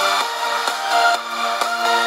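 Electronic dance music with a steady beat, about two beats a second.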